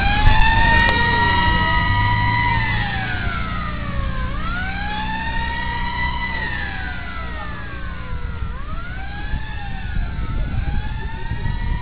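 Emergency vehicle siren wailing, rising slowly to a held high note and falling again in cycles of several seconds. A second siren faintly overlaps it, over a low rumble.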